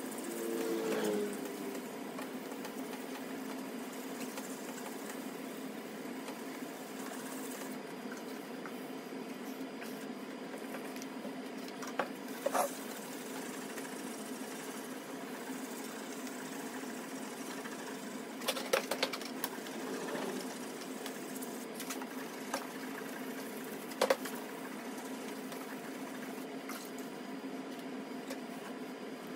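Steady low hum, with a brief squeak about a second in and a few isolated sharp clicks of hands handling and wiping the plastic lightbar dome.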